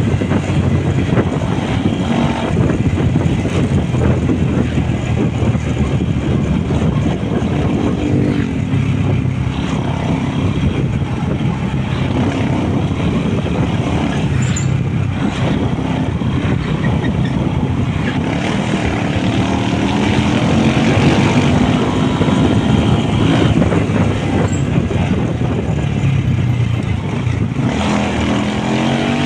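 Motorcycle under way on the road: engine running steadily under a constant rush of wind and road noise. The engine pitch rises about two-thirds of the way in and again near the end as it speeds up.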